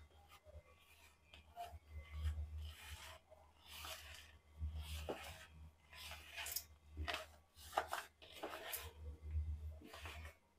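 Fingers rubbing and squeezing coarse bhakhri flour with oil in a plastic bowl, a faint, irregular scratchy rubbing. This is the stage of rubbing the oil shortening into the flour before the dough is kneaded.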